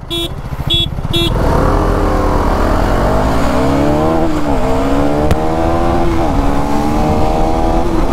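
KTM Duke 390 (2024) single-cylinder engine pulling away from a standstill and accelerating, its revs climbing and then dropping at upshifts about four, six and eight seconds in, over wind rush. Three short beeps sound just before it sets off.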